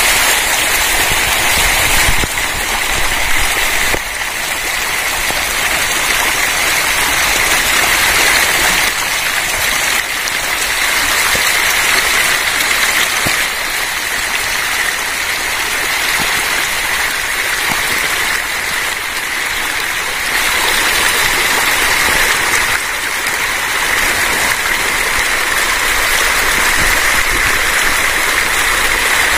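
Dense, continuous splashing and churning of water from a mass of hybrid magur catfish thrashing at the pond surface while feeding on pellet feed, heard as a steady rushing of water.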